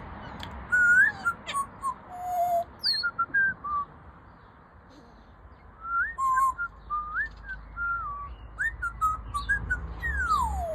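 Pet parrot whistling: a string of short rising and falling whistled notes, a pause of about two seconds in the middle, then more notes ending in one long falling whistle.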